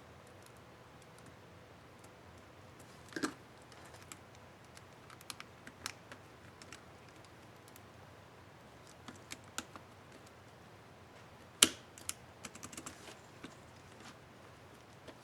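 Scattered plastic clicks and snaps from the Enter keycap on an Asus K55A laptop keyboard being refitted and pressed, coming in small clusters with one sharp, loud snap about two-thirds of the way through.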